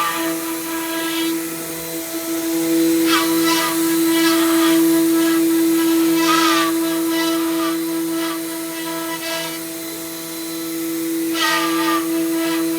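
Woodworking CNC router's spindle running with a steady high whine, with louder, wavering swells every few seconds as it cuts.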